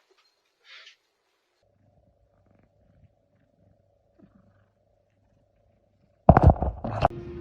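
Several seconds of near silence with a faint steady hum, then, about six seconds in, a short, loud animal sound of a few pulses that is tagged as a roar.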